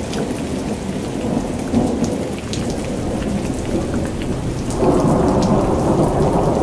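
Heavy rain pouring down in a mountain storm, with a low rumble under it and scattered drop ticks. About five seconds in it grows louder and fuller as the rain drums on the roof and windows of a cable-car cabin.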